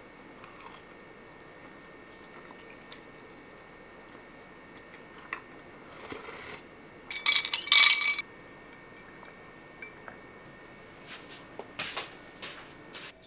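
Ceramic plates and bowls clinking and knocking as they are picked up and stacked off a table. The loudest is a quick cluster of ringing clinks a little past halfway, with a few softer knocks near the end.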